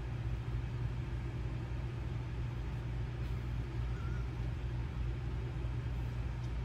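Steady low hum and rumble with no distinct events; no clatter from the tipping chair stands out.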